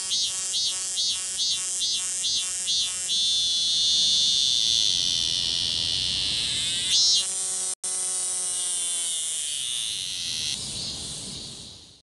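Cicada singing: rapid high-pitched pulsed calls, about three a second, that run together into a steady high buzz. A fresh pulse about seven seconds in turns into a drone that slowly falls in pitch, and the song fades out at the end.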